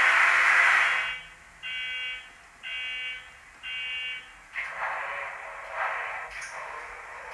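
Bachmann Class 66 model locomotive's DCC sound decoder playing its diesel start-up sequence through the model's small speaker: a loud hiss cuts off about a second in, three buzzer-like warning beeps follow about a second apart, then an irregular pulsing noise as the start-up continues.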